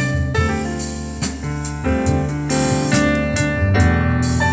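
Music played through a pair of Sony SS-CM3 two-way bookshelf speakers, each with a 4.5-inch paper-cone woofer and a paper-cone tweeter: piano-led music over a steady bass line with drums and cymbals.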